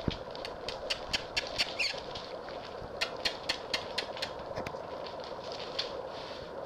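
Valley Bulldog puppies scuffling, a quick series of small sharp clicks and scratches in two runs, with a faint steady hum underneath.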